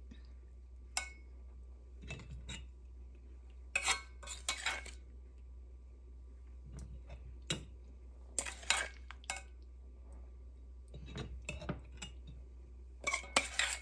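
Metal spoon clinking and scraping against a glass jar while oily amla pickle is spooned and packed into it: irregular short clinks and scrapes spread through the whole stretch.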